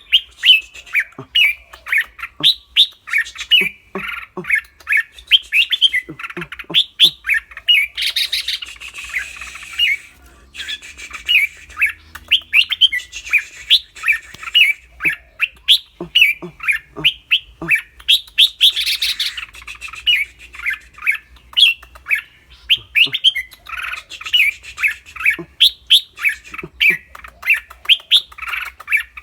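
Caged red-whiskered bulbul singing a rapid string of clear whistled notes, broken twice, about 8 seconds in and again near 18 seconds, by harsh scratchy 'rik rik' chattering.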